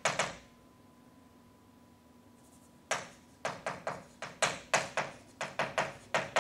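Chalk tapping on a chalkboard in quick, irregular strokes as writing goes on; a sharp tap at the start, then a pause of about two and a half seconds, then a steady run of taps, two to three a second, from about three seconds in.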